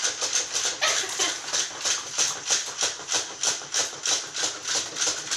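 Battery-operated waddling toy puppy running, its mechanism making a steady rhythmic clicking rattle at about four or five clicks a second.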